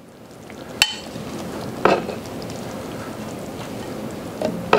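Gumbo simmering in an electric skillet with a steady bubbling hiss, while a wooden spoon scoops from the pan and knocks against the pan and a bowl. There is a sharp clack about a second in and softer knocks near two seconds and near the end.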